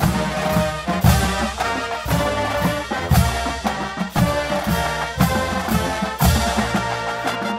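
Marching band playing a march, brass carrying the tune over drums, with a strong accented beat about once a second.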